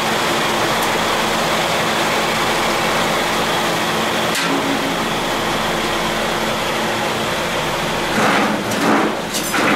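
Steady whirring hum of an electric fan running, with a few louder, brief noises near the end.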